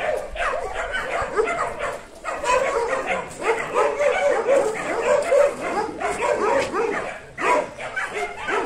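Dogs barking and yipping in a rapid, nearly unbroken run of short calls, with brief pauses about two seconds in and again about seven seconds in.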